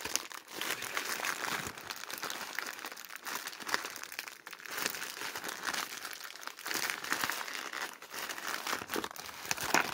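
Plastic courier mailing bag crinkling and rustling as it is handled and turned over, a dense crackle with a few brief pauses.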